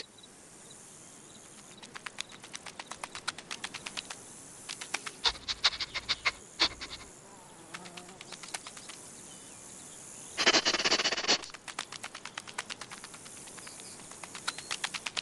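Cartoon insect sound effects: runs of quick, light ticks, several a second, like a small insect's scurrying steps. A short hissing burst about ten seconds in is the loudest moment.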